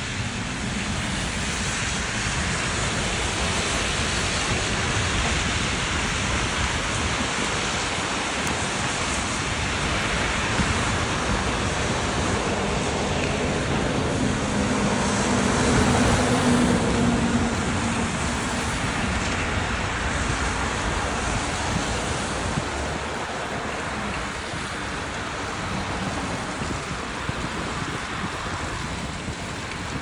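Wind rushing over the phone's microphone, mixed with the hiss of car tyres on a wet road. The noise swells to its loudest about halfway through.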